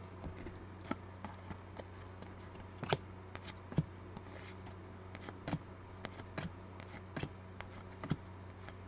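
A stack of football trading cards being flipped through by hand, with irregular soft clicks and snaps of card edges as cards slide over one another. A steady low hum runs underneath.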